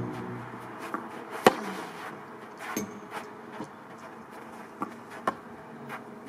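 Tennis balls knocking on an outdoor court: a few sharp, separate hits from the ball launcher, bounces and racket strikes, the loudest about one and a half seconds in.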